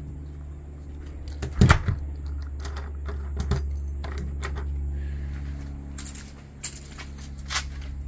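A wooden closet door with a brass knob pushed shut, knocking into its frame about one and a half seconds in, followed by scattered clicks and jingles of a bunch of keys.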